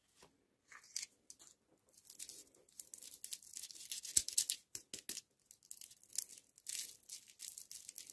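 Thin plastic candy wrapper crinkling and tearing as it is pulled off a small lollipop by hand, with one sharp click about four seconds in.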